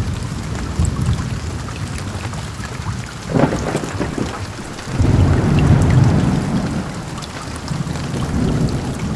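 Heavy rain falling steadily, with thunder: a short sharp crackle a little after three seconds in, then a long low rumble that swells about halfway through and fades.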